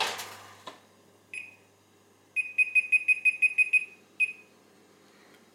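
A built-in electric fan oven's touch control panel beeping as the timer is set: one high beep, then a quick run of about ten beeps, then a single beep. Just before, the oven door shuts with a light knock.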